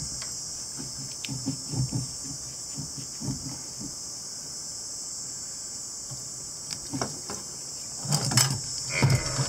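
Gloved hands twisting and pulling a heater hose off a bus heater's copper coolant pipe: soft knocks and scrapes, busier near the end, over a steady high-pitched chirring.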